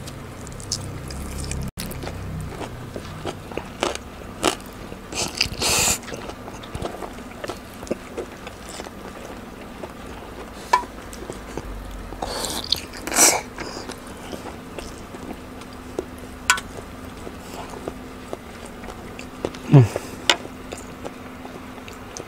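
Close-miked eating of a large bakso meatball: wet chewing and lip smacking with scattered sharp clicks, louder around five and thirteen seconds in. Near the end a brief low sound slides down in pitch.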